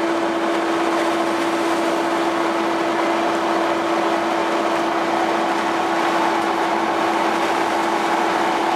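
Fishing vessel's deck machinery running steadily while the purse-seine net is hauled aboard: a loud mechanical drone with a constant hum at one pitch.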